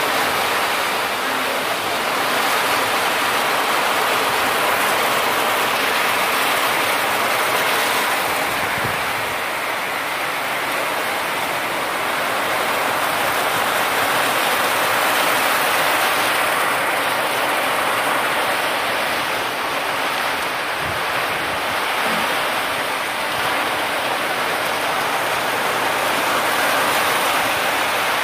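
Heavy rain falling steadily in a dense, even hiss.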